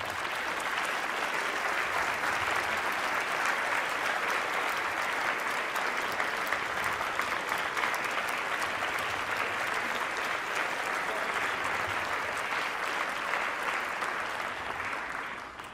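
Audience clapping steadily in a large hall, tailing off near the end.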